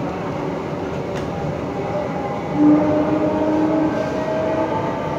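Metro train running, heard from inside the coach: a steady, even running noise of the wheels and drive. About two and a half seconds in, a steady tone comes in for a second or two over the running noise.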